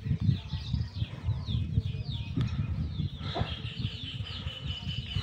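Small birds chirping over and over in short falling notes, over irregular low rubbing from a paintbrush being worked across a rough wooden board. A steady high whistle starts about three seconds in.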